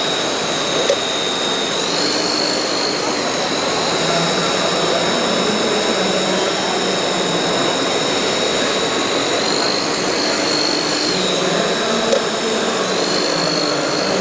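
A radio-controlled model's motor whining at a steady high pitch, rising a little and settling back three times, over a steady wash of background noise.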